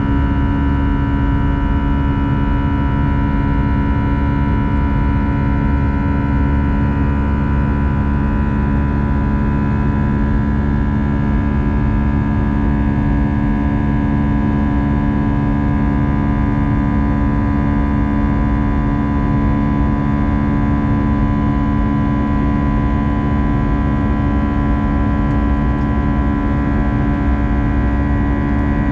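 Airbus A320 passenger cabin in flight: the jet engines' steady drone, a deep rumble with several steady humming tones above it.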